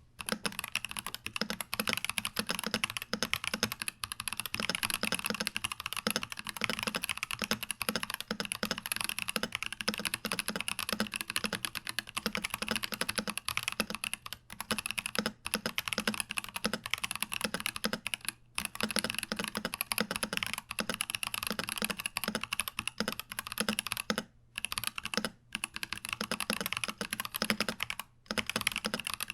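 IQUNIX Q66 mechanical keyboard with unlubed Boba U4T tactile switches, typed on fast and without stopping: a dense run of key clacks with a few short pauses late on.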